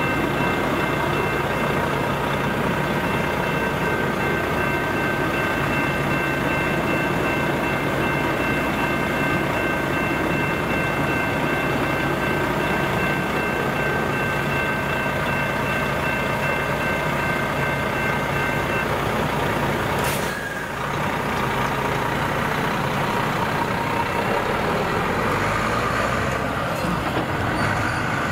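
Level-crossing electronic bells (General Signals E-Bells) ringing steadily over a diesel semi-trailer truck idling close by. The bells stop about two-thirds of the way through, and a short hiss like a truck air-brake release follows a second later. Near the end the truck pulls away.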